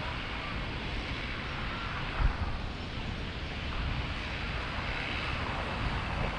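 Wind buffeting the microphone over a steady outdoor rush, with one brief low thump about two seconds in.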